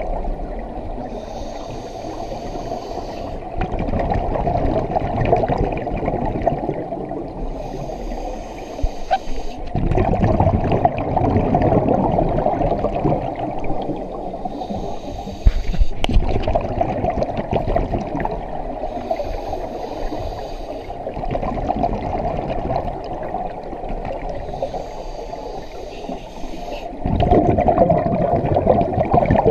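Scuba diver breathing through a regulator underwater: five breaths, each a hissing inhale of about two seconds followed by a louder gush of exhaled bubbles.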